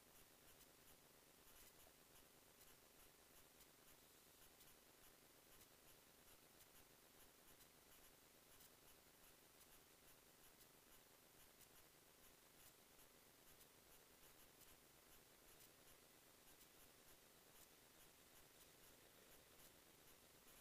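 Near silence: only a faint steady hiss with faint light ticks.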